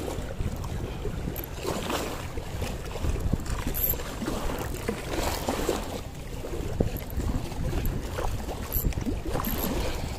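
Small sea waves washing against a concrete shoreline ledge, with wind rumbling on the microphone.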